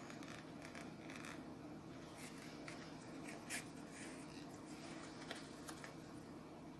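Faint rustling of yarn and a sewing needle being drawn through crocheted fabric during hand-stitching, with a small click about three and a half seconds in, over a steady low hum.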